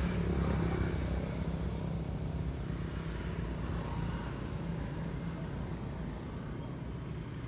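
A steady low engine hum, slowly getting a little fainter.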